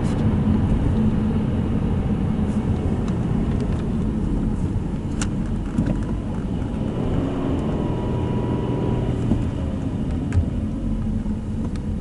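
Car driving on a road, heard from inside the cabin: a steady low rumble of engine and tyre noise, with a couple of faint clicks.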